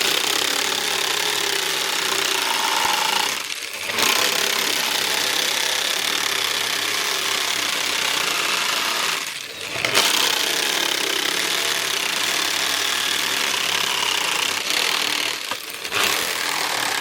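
Power grinder grinding a leaf-spring steel knife blade: a steady, harsh grinding noise that briefly drops away twice, about three and a half and nine and a half seconds in.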